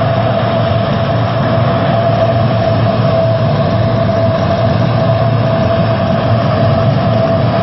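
Steady drone of a C-130 Hercules's four turboprop engines running at ground idle, with a constant whine held over a low hum.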